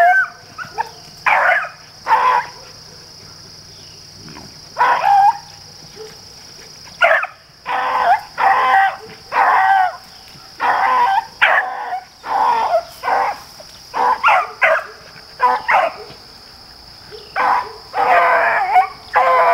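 Beagles baying on a rabbit's scent trail: short, bawling calls that come again and again at uneven gaps, the sound of hounds running a rabbit.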